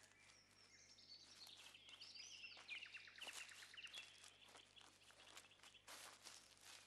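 Quiet woodland ambience: small birds chirping and singing in repeated short notes, with rustling, crackling steps on dry leaf litter, most pronounced near the end.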